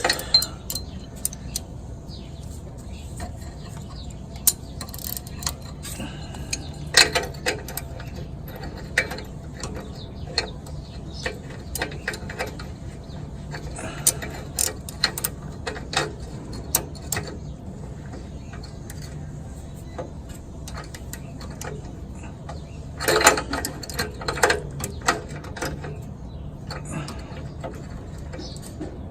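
3/8-drive ratchet clicking in short bursts with pauses as it turns an oxygen sensor socket, tightening a new upstream oxygen sensor into the exhaust, with scattered metal clinks and a steady low hum underneath.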